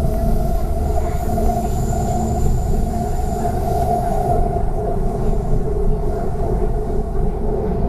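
MTR K-Train metro carriage running through a tunnel, heard from inside the car: a steady rumble of wheels on track with a sustained whine at one pitch above it.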